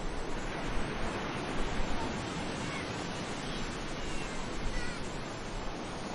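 Sea waves washing onto a beach: a steady rush of surf, with a few faint short high-pitched calls in the second half.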